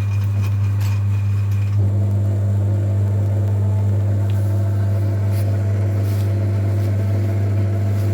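Metal lathe running with a steady motor hum while turning a 1.9 TDI piston in its chuck. About two seconds in, the higher whine in its sound changes, and a few light clicks come through.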